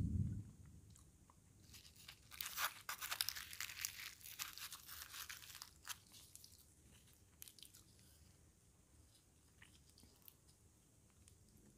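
Close-up eating sounds over a plate of puri and fried vegetables: a low soft thump at the very start, then about four seconds of dense, crisp crackling and crunching from about two seconds in, then only faint scattered clicks as puri is torn by hand.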